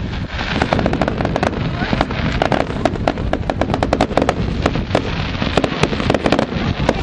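Fireworks display going off: a dense run of sharp bangs and crackles, many a second.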